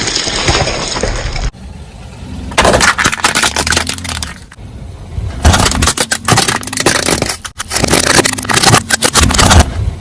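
Car tyre rolling over and crushing objects: dense crunching, cracking and crackling, in several short clips that cut in and out abruptly.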